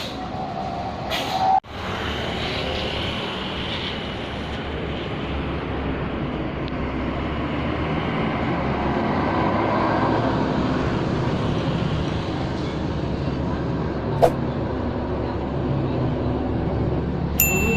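Intercity bus on the move: a steady low engine hum and road noise that swells a little and eases off. There is a single click partway through and a short high beep near the end.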